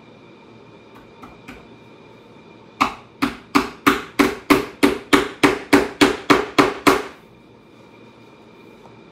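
Saddle maker's hammer striking the seat strainer on a saddle tree: a couple of light taps, then a quick run of about fourteen sharp blows, roughly three a second, driving tacks to fasten the strainer down.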